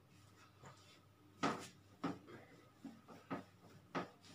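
Whiteboard duster rubbed across the board in about five short, brisk wiping strokes, the loudest about one and a half seconds in, as notes are erased.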